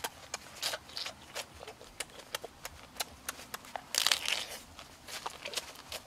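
Close-up eating of a cooked crab: chewing and lip smacking with many small sharp clicks, and one louder crunch of crab shell being bitten about four seconds in.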